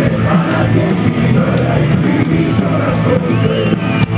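Loud rock music playing.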